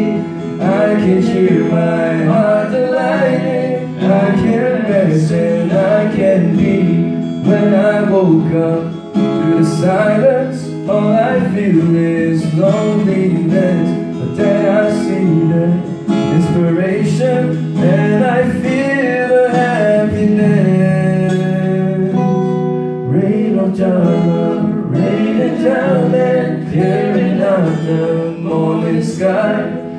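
Acoustic guitar strummed with a man singing along into a microphone: a live, unamplified-sounding performance of a slow devotional song.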